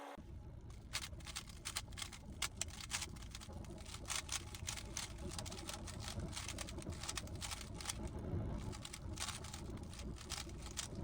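A GAN 15 speedcube's layers being turned by hand: a quick, irregular series of plastic clicks, several a second.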